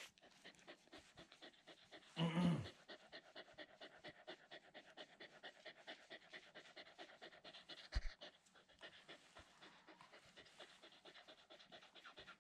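Border collie puppy panting quickly and evenly with a rubber ball in its mouth, close up. About two seconds in there is a short, louder low sound, and a single thump comes about eight seconds in.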